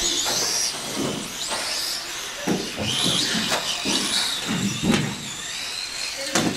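Radio-controlled off-road cars racing, their motors whining high and rising and falling in pitch as they speed up and slow down, with a few sharp knocks.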